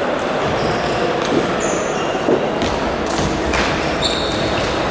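Table tennis balls clicking off tables and bats at irregular intervals, over a steady hall din, with a few short high squeaks.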